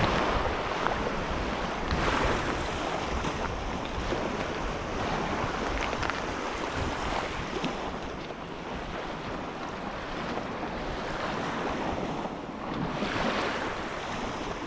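Small lake waves washing onto the shore with wind buffeting the microphone, the wash swelling louder about two seconds in and again near the end.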